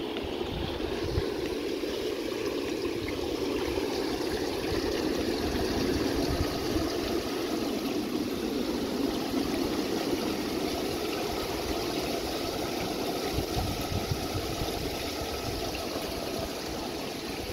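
Steady outdoor rush of moving water, with wind buffeting the microphone in irregular low gusts.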